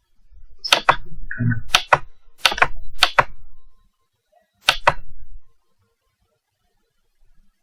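Computer mouse button clicking: several sharp clicks, most in quick press-and-release pairs, over a low rumble of desk handling.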